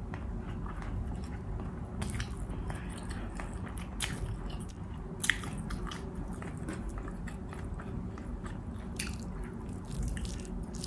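A person chewing bistek Tagalog (soy-and-calamansi beef steak) close to the microphone, with wet mouth smacks and small clicks over a steady low background hum, and one sharper click about five seconds in.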